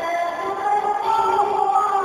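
Background music with a singing voice: steady held notes under a vocal line that bends in pitch.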